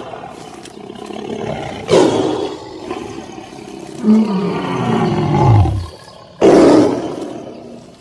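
Big cat roaring, several times: a sudden loud roar about two seconds in, a long call falling in pitch, then another loud roar near the end.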